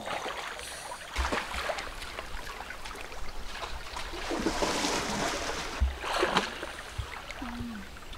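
River water flowing and splashing around a person wading through it, with louder splashes about a second in and again past the middle.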